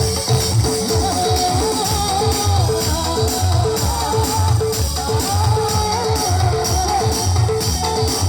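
Live band playing a song at a sound check: drum kit, bass and guitar with tambourine over a steady beat, and a wavering lead melody that comes in twice.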